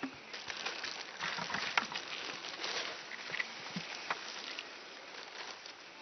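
Crinkly rustling of a plastic bag and the dry flax inside it as a hand rummages in it, with many small crackles; it dies down about four and a half seconds in.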